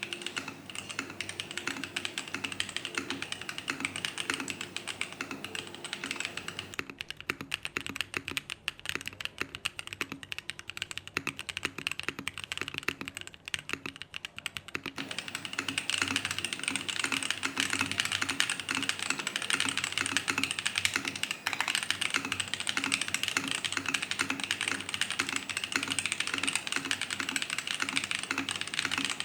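Continuous typing on a Mode Eighty mechanical keyboard with lubed Holy Panda tactile switches, an aluminium plate and DCX keycaps: a rapid, unbroken clatter of keystrokes.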